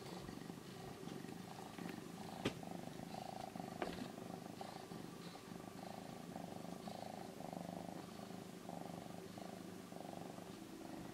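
Domestic cat purring close to the microphone, the purr coming in even, repeating pulses. Two sharp clicks sound, about two and a half and four seconds in.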